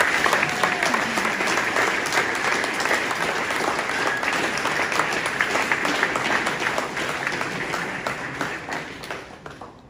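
Audience applauding, many hands clapping at once, the clapping dying away over the last couple of seconds.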